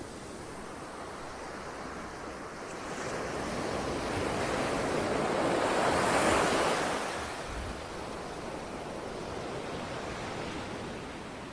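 Small sea waves washing up a sandy beach. One wave builds about a quarter of the way in, breaks loudest near the middle, then fades back to a steady wash of water over sand.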